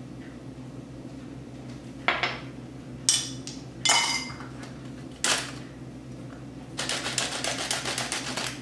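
A few separate metal clinks and knocks of kitchen utensils being handled, then, from about two-thirds of the way in, a rapid run of rattling clicks from a metal flour sifter being worked over the mixing bowl, sifting flour and cocoa powder.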